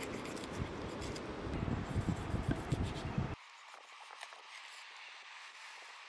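Knife cutting and scraping through a whole spit-roasted chicken on a wooden board, a string of sharp cuts over wind rumble on the microphone. A little over three seconds in the rumble stops abruptly, leaving faint clicks of fingers handling the meat.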